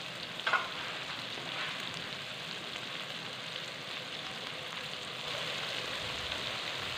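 Onions and ginger-garlic paste frying in ghee in an aluminium karahi, a steady sizzle as the paste browns, with a short knock about half a second in.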